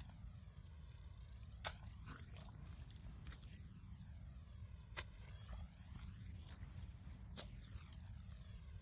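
A long-handled hoe chopping into wet ditch mud: three sharp strikes a couple of seconds apart, over a low steady rumble.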